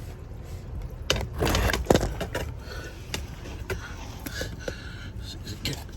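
Handling clatter under the car: a string of knocks and clicks with a short scrape about a second and a half in, while engine oil drains from a 2002 Acura MDX's oil pan into a drain pan.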